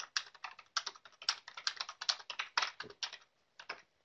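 Typing on a computer keyboard: a quick run of keystrokes that stops shortly before the end.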